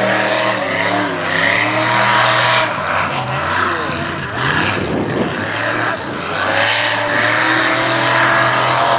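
Mega mud truck engine revving hard, its pitch dropping and climbing back a couple of times as the throttle is worked, then holding high. Under it is a steady rush of the big tires churning and slinging mud.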